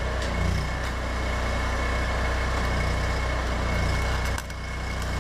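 Electric arc welding on steel angle: the steady crackling hiss of the arc over a low buzzing hum, dropping out briefly a little over four seconds in, then picking up again.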